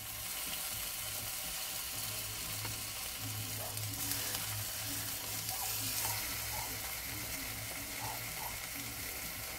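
Bacon sizzling in a non-stick frying pan on a camping stove: a steady crackling hiss of fat frying, with a low hum that comes and goes underneath.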